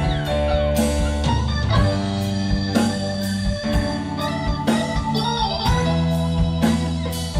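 Live rock band playing an instrumental passage: a sustained electric guitar lead with sliding, bending notes over bass, drums and keyboard.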